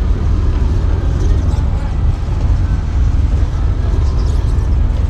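Steady low rumble of diesel trucks idling at a fuel island, with no sudden events.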